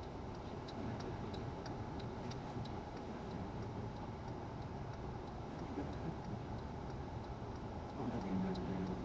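Steady road and engine noise heard from inside a moving car, with a faint, regular ticking at about two to three ticks a second and a brief low hum near the end.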